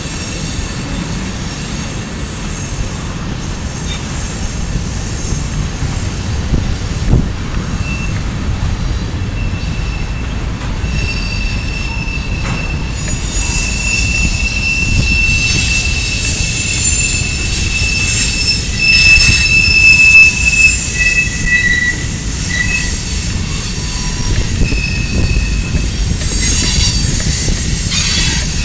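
Cars of a Norfolk Southern manifest freight train rolling past: a steady low rumble of steel wheels on rail. A thin, high wheel squeal comes and goes from about eight seconds in until near the end.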